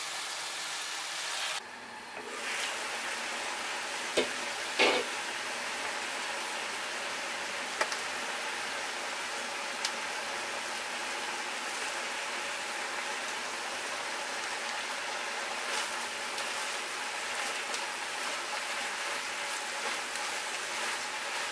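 Vegetables sizzling as they are stir-fried in a hot wok, a steady frying hiss with a few sharp clicks.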